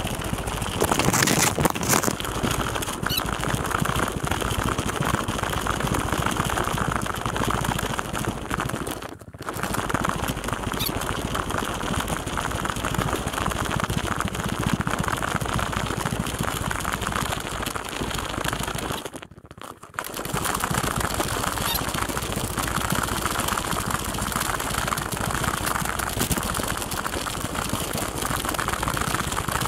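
Steady rushing wind and movement noise on a body-worn camera's microphone while walking a dirt forest trail. The noise drops out briefly twice, about nine and nineteen seconds in.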